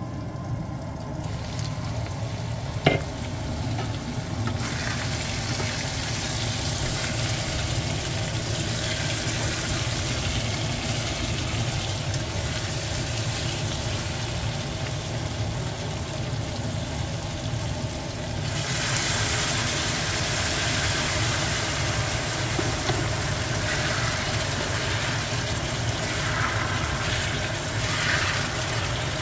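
Chunks of meat sizzling in a stainless steel pan as they are stirred with a spatula. The sizzle grows louder about four seconds in and again after about eighteen seconds, over a steady low hum, with a single knock about three seconds in.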